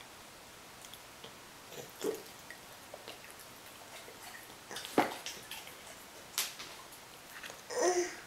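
Toddlers eating at plastic high-chair trays: a few scattered small clicks and taps, the sharpest about five seconds in, and a short child's vocal sound near the end.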